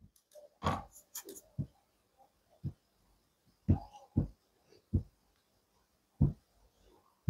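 Marker pen on a whiteboard: a series of short, separate taps and strokes, about one a second, as digits are written one after another.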